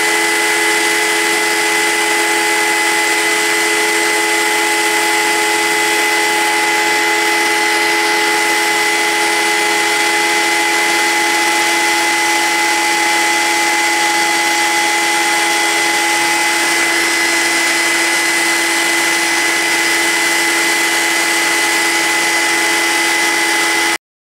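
CNC router spindle running steadily, a continuous machine noise with a constant high whine, as it carves wood. It cuts off suddenly near the end.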